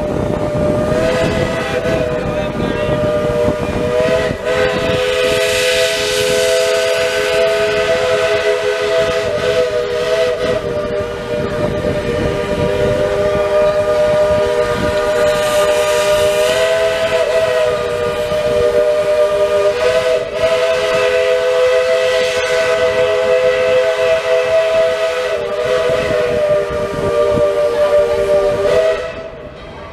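Steam locomotive's chime whistle held in one long, steady chord of several tones for nearly half a minute, cutting off sharply near the end, with a hiss of steam beneath it.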